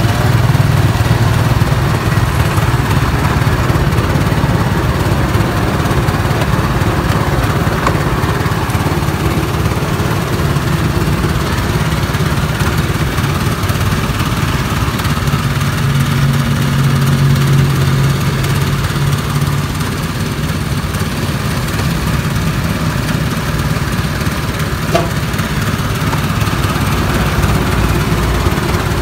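Motorized sugar cane juice press running steadily with a low hum as cane stalks are fed through its rollers; the hum grows stronger for a few seconds past the middle.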